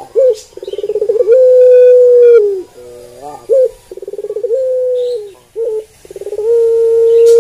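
Barbary dove (ringed turtle dove) cooing close by. Each call is a short note, then a fast stuttering roll that swells into a long held coo falling away at its end, repeated three times.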